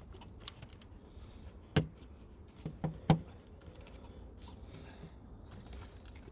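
Clicks and knocks of a cover being lined up and fitted into place in an engine bay, with four sharper knocks about two to three seconds in.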